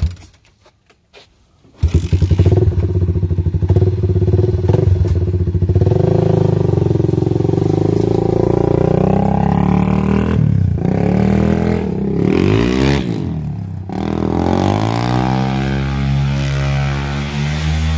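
ATV engine catching about two seconds in and running loud, then revved up and down as the quad rides off, with its pitch climbing near the end as it accelerates away.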